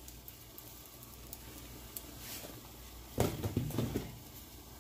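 A spice shaker is shaken over a cast-iron skillet, giving faint light ticks. About three seconds in comes a short, louder burst of knocking and rattling.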